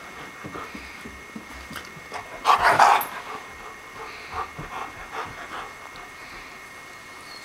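A Doberman gives one loud yelp about two and a half seconds in, then makes several faint squeaking whimpers.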